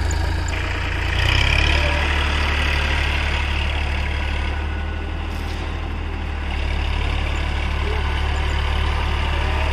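Swaraj 744 FE tractor's diesel engine running steadily, a little louder from about a second in.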